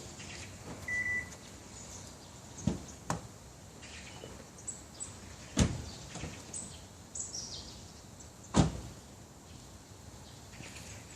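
A car fitted with an aftermarket remote-start alarm: one short high beep about a second in, then a series of thuds, two of them loud, near the middle and later on, with faint bird chirps between.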